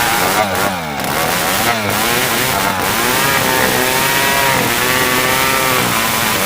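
Old two-stroke chainsaw running at high revs while cutting dry merbau hardwood, its engine pitch repeatedly dipping and picking up again as the chain bites into the wood.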